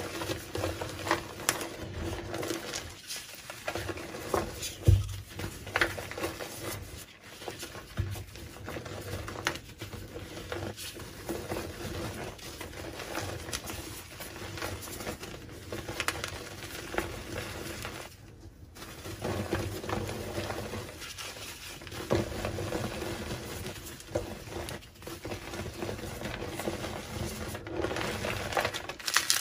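Reformed gym chalk blocks being crushed and crumbled by hand into loose chalk powder: an irregular stream of dry crackles and soft powdery crunches.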